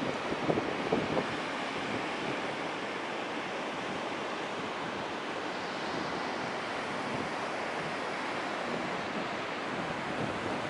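Strong spring-storm wind blowing steadily over the microphone, an even rushing roar, with a few brief louder buffets in the first second or so.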